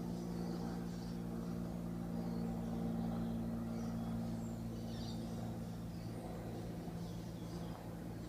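A steady low hum, with faint high chirps now and then.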